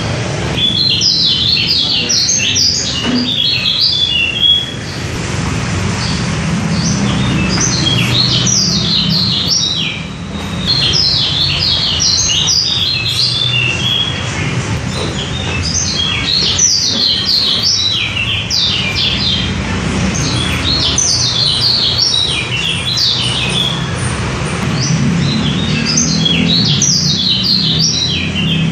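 White-eye (pleci) song: bursts of fast, high twittering notes, each phrase lasting a second or two and repeating every few seconds, over a steady low hum.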